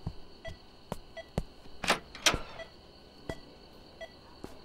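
Bedside patient monitor beeping at a steady pulse, about one and a half short beeps a second, with footsteps and a couple of louder knocks about two seconds in.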